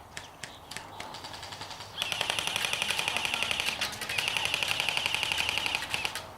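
Airsoft electric gun firing on full auto: a fast rattle of shots over the high whine of its motor and gearbox, in two long bursts with a brief break between them. A few scattered single clicks come before the bursts.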